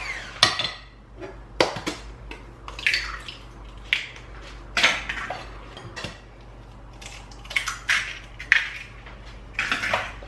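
A series of sharp, irregular clinks and knocks on a glass mixing bowl, about a dozen in all, as the metal beaters of a hand mixer tap against it. An egg is cracked on the bowl near the end.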